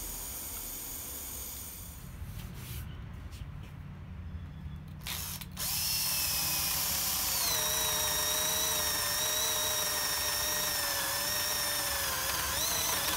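A bench grinder hums quietly at first. About five and a half seconds in, a cordless drill starts boring into a wooden block with a spade bit forged from an old cobalt twist drill. Its motor whine drops in pitch as the bit bites, holds steady, and rises again near the end.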